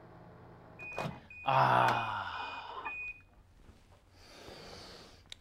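Microwave oven humming, then beeping several short times at one high pitch over about two seconds to mark the end of its cooking time. A loud wordless vocal sound comes in over the beeps.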